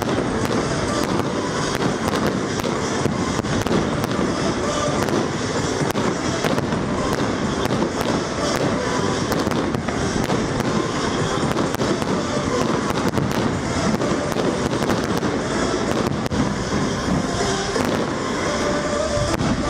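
Aerial fireworks shells bursting in a dense, continuous barrage, with many sharp cracks and bangs overlapping and no pause between them.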